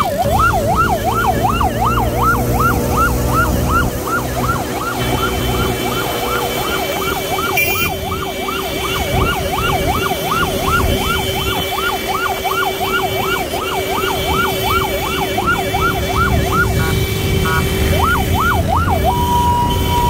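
Electronic siren on a motorcycle ambulance sounding a fast wail that sweeps up and down about twice a second, over engine and traffic noise. Near the end it breaks off briefly, sweeps a few more times, then changes to a steady tone.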